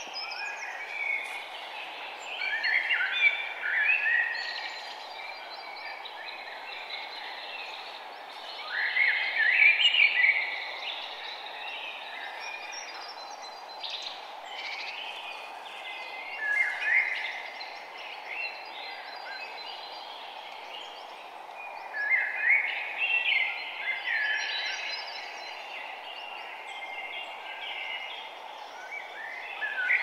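Songbirds singing in short bursts of quick chirping phrases every few seconds, over a steady background hiss.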